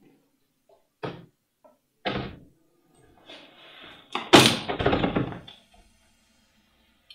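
Two single thumps, then a locked door's metal lever handle rattled and the door shaken against its latch. The rattling starts sharply about four seconds in, is the loudest sound, and lasts just over a second.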